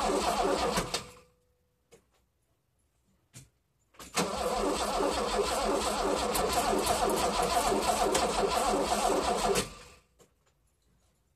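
1988 BMW E28 M5's S38 straight-six turning over on the starter in a rhythmic chug without firing, in two goes: the first stops about a second in, then after a pause with a couple of faint clicks it cranks again for about six seconds and stops. A failed cold start in sub-zero cold.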